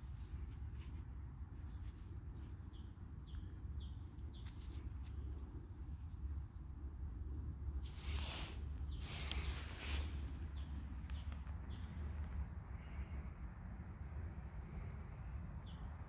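A small bird chirping in runs of short, high repeated notes, over a steady low rumble of outdoor noise. Two brief rustles come about eight and nine and a half seconds in.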